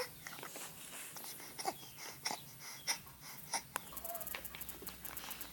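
A baby's faint wheezy breathing and snuffles, broken by short clicks and small mouth noises.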